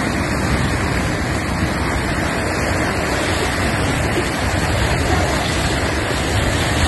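Floodwater rushing across a road, a steady loud rush of moving water.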